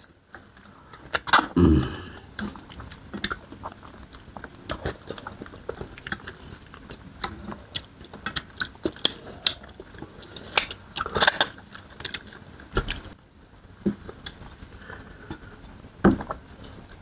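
Close-up eating sounds: mouths chewing and biting into smoked chicken and starch fufu, a steady run of short wet clicks and smacks. Louder bites come about a second in, around eleven seconds in, and near the end.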